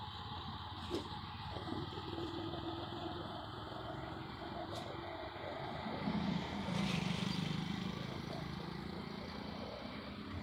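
Road traffic on a city flyover, heard from a moving bicycle: a steady hum of engines and tyres, with a louder vehicle engine passing from about six to eight seconds in.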